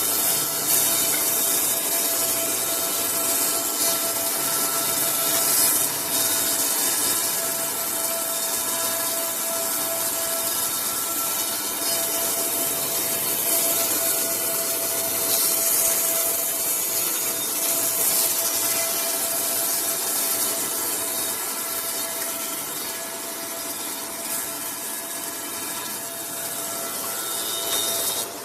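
Four-sided wood planer running and planing timber: a steady, dense cutting noise over a constant machine whine, easing slightly in the last few seconds.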